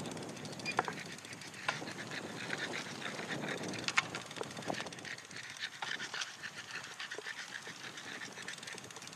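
Bicycle tyres rolling on a gritty path, with scattered sharp clicks and ticks. A Boston terrier running close behind, panting.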